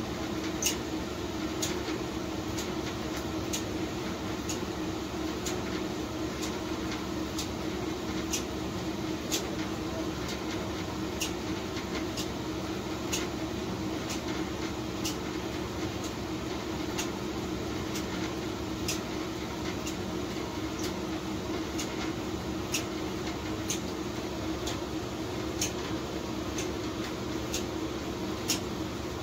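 Costway 1700W compact front-load tumble dryer running with a steady hum, with a light click about once a second throughout.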